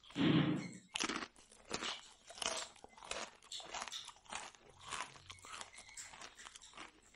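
Close-miked crunchy chewing of crisp jalebi: a loud bite right at the start, then crackly chews about two to three a second.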